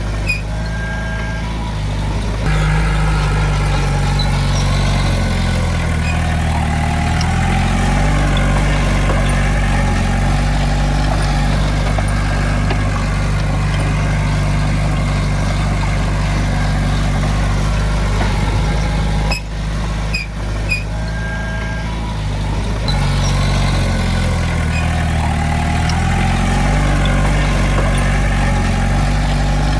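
Heavy diesel engine of an earthmoving machine running steadily, its pitch shifting up and down a few times as the load changes, with a short break and a few light clicks about twenty seconds in.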